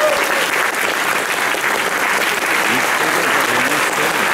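Audience applauding steadily in a concert hall, with a few voices calling out about three seconds in.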